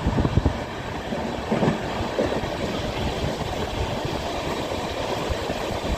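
Indian Railways passenger train running on the line, a steady rattling running noise with uneven low knocks.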